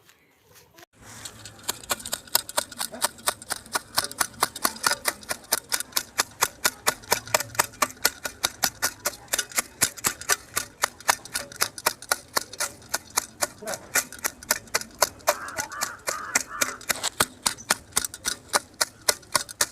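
Homemade hoe with a ceiling-fan-blade head chopping at the ground over and over: sharp strikes about three a second, starting about a second in.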